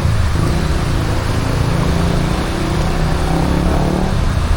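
Taxi engine running as the car drives along, heard from inside the cabin over a steady hiss of road noise.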